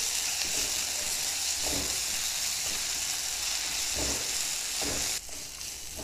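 Onions, cashews and fresh ginger-garlic paste sizzling in hot oil in a pan, with a few strokes of a wooden spatula stirring through them. The sizzle drops away suddenly about five seconds in.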